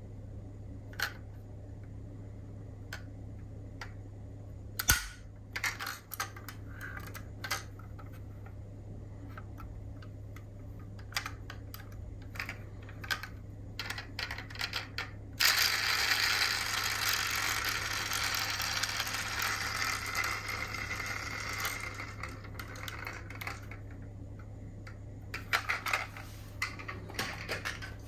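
Small diecast metal model cars being handled: scattered light clicks and taps of their metal and plastic parts. About halfway through, a steady rushing, rattling noise starts abruptly and lasts about six seconds, with a low steady hum underneath throughout.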